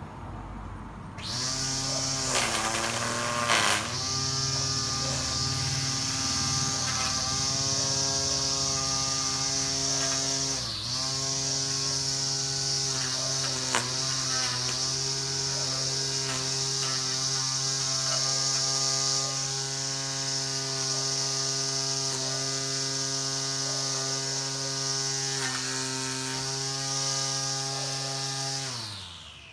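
Ryobi OLT1832 18V cordless string trimmer's electric motor spinning up about a second in and running at a steady pitch, with a brief dip in speed about eleven seconds in. Near the end the trigger is released and the motor winds down, its pitch falling.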